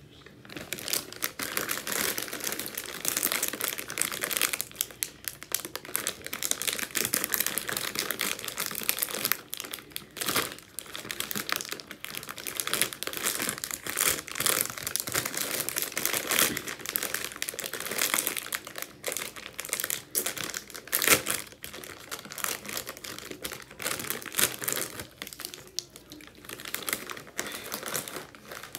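A Lay's India's Magic Masala chip bag crinkling as it is handled, pulled open and rummaged through by hand: dense, irregular crackling with a few sharper crackles.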